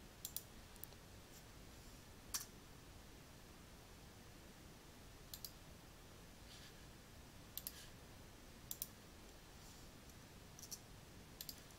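Faint, scattered clicks of a computer mouse and keyboard, about a dozen spaced a second or more apart, over near-silent room tone.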